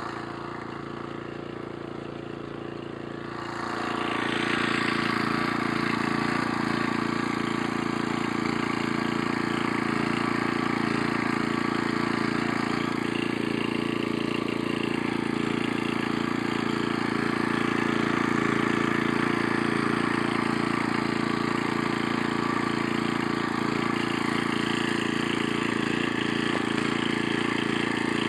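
Small engine of a two-wheel walk-behind tractor running steadily, growing louder about three and a half seconds in and then holding an even pitch.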